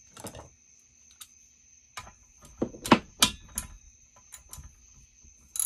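Metal hand tools clinking and clicking while a 19 mm socket is sought and fitted, a scatter of separate clicks with the loudest clank about three seconds in.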